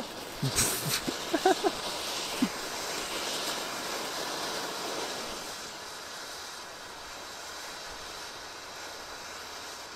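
Firework fountain spraying sparks with a steady hissing rush that eases off after about five seconds. A sharp crack about half a second in and several short pops in the first two and a half seconds sit over the hiss.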